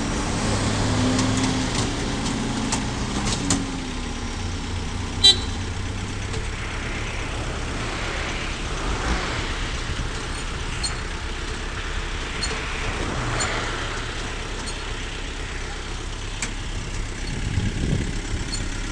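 A heavy vehicle's engine running steadily, with a single sharp knock about five seconds in.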